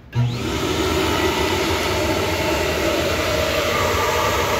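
Flow bench motors switching on and pulling air through a ported intake manifold runner: a sudden start about a quarter second in, then a loud, steady rush of air with a constant motor hum, running at full flow of about 274 CFM.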